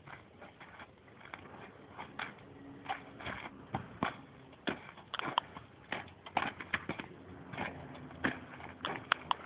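Irregular sharp clicks and knocks, a few a second: a Friesian horse's hooves striking hard-packed dirt as it prances in place.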